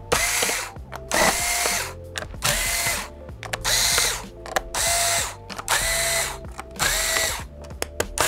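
Cordless electric screwdriver backing out the small screws of a laptop's bottom cover. It runs in short bursts of about half a second, roughly one a second, and its motor whine rises and falls with each burst. Light clicks come between the bursts.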